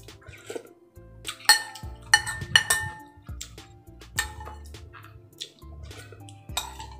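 Metal spoon and fork clinking and scraping against a ceramic bowl, with a few sharp, ringing clinks about one and a half to three seconds in. Soft background music plays underneath.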